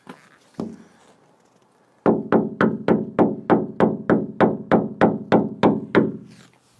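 Knuckles knocking hard on a door or window: two single knocks, then a fast, even run of about fifteen knocks, some three or four a second, each with a short hollow ring.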